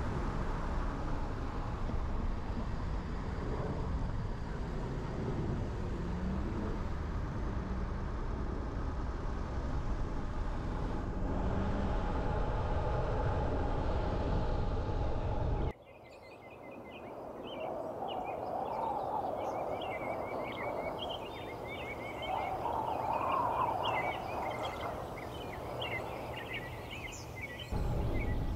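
Steady low road and engine rumble of a car driving through city streets. About halfway in it cuts out abruptly, leaving a quieter stretch full of many short high chirps. Near the end the rumble returns just as suddenly.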